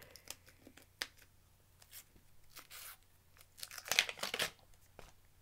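A metal tin can being worked at by hand, with scattered clicks and a louder burst of tearing and scraping about four seconds in.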